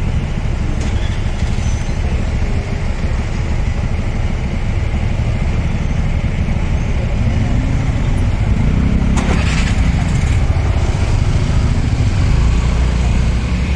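Road traffic in a jam: vehicle engines running in a steady low rumble, with no horns sounding. There are a couple of brief knocks about nine seconds in.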